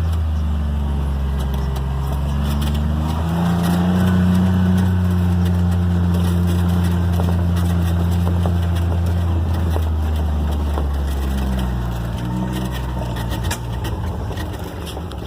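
Engine of a Gator utility vehicle driving off-road: it speeds up about three seconds in, runs steadily, then slows down and drops back in pitch near the end.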